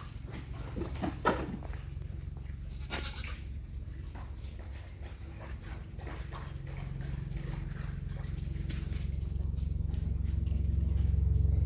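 A goat bleats briefly about a second in, over a low steady hum that grows louder toward the end.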